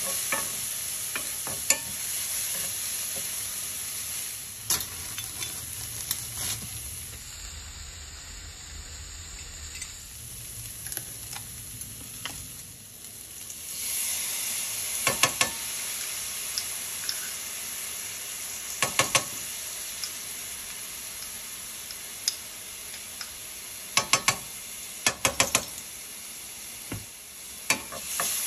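Diced onions sizzling in oil in a frying pan over medium heat, a steady frying hiss. Clusters of sharp taps of a utensil on the pan come now and then.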